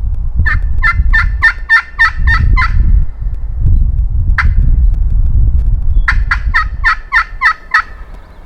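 Two loud runs of turkey hen yelps, about four a second, with a single note between them, played on a hunter's slate call. Wind rumbles constantly on the microphone underneath.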